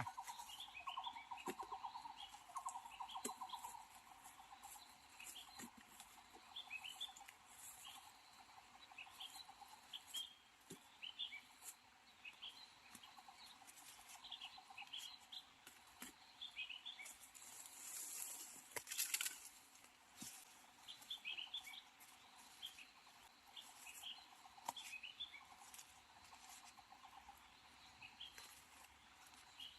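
Quiet hillside ambience. Many short high chirps repeat throughout, and a fast pulsing trill is clearest in the first few seconds. Scattered light steps and rustles sound in the undergrowth, with one louder rustle about eighteen seconds in.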